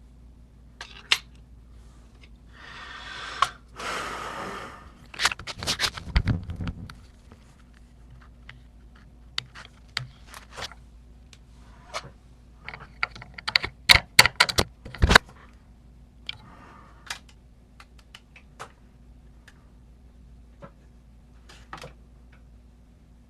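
Small metal parts of an Emhart lock and its key being handled: scattered sharp clicks and taps, two scraping stretches about three and four seconds in, and a quick flurry of clicks about halfway through.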